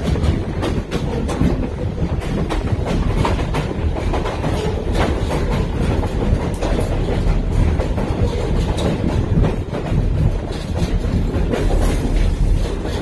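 Passenger train rolling along the track, heard from an open-air car: a steady low rumble of wheels on rail with frequent clicking and clacking.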